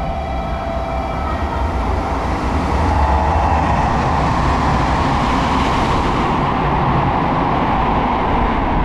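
Electric passenger train moving along the platform past the camera: a steady rushing rumble of wheels on rails that grows louder about three seconds in and then holds.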